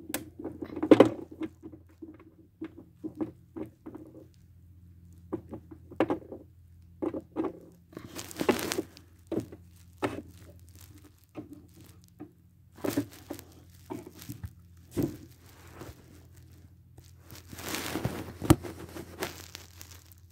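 Small plastic toy figures being moved by hand and tapped down on a wooden dollhouse floor: a string of light clicks and knocks, with two longer rustling stretches of handling. A faint steady hum runs underneath.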